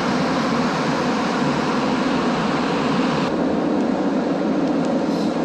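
Montreal Metro MR-73 rubber-tyred train running, a steady running noise heard from inside the car. About three seconds in the upper hiss drops away as the train slows into a station.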